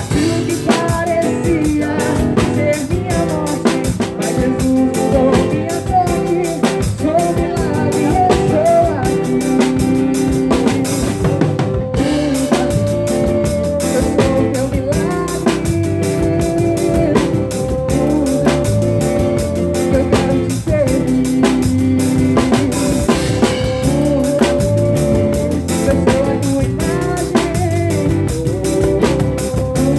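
Live band playing a gospel pagode song, with the drum kit keeping a steady beat under melodic instruments.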